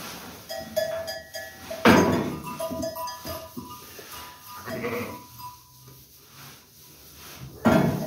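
Sheep bleating, with two loud bleats about two seconds in and near the end and fainter calls between them.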